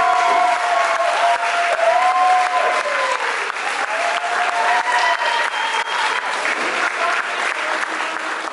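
Audience applauding, with some cheering voices over the clapping; the applause fades out near the end.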